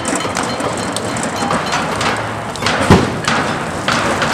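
A heavy thud about three seconds in, the loudest thing here, over a dense crackling layer of noise and short clicks.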